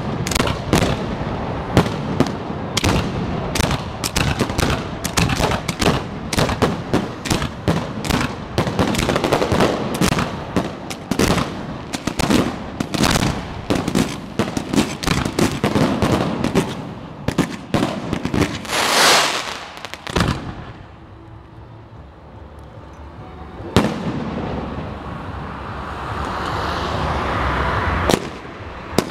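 Fireworks display: rapid volleys of bangs and crackling shell bursts come in quick succession for about twenty seconds, with a long hiss about nineteen seconds in. Then comes a lull broken by a single bang, a steady hissing spray that builds near the end, and a few more bangs at the close.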